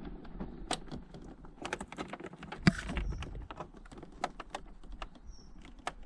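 Irregular small clicks, taps and rubs of fingers gripping and straining at the plastic tabs of a motorcycle indicator bulb holder, with a brief scuffing rustle a little under halfway through. The holder is stuck fast in the fairing, its rubber seal dried out and stuck to the plastic.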